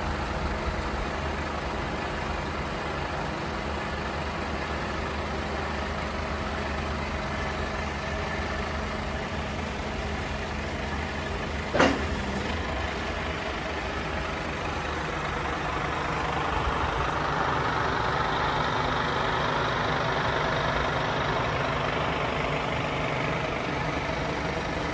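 Scania P280 truck's nine-litre five-cylinder diesel engine running steadily while its HMF loader crane is worked. There is a single sharp knock just before halfway, and a louder hiss joins the engine sound from about two-thirds of the way in.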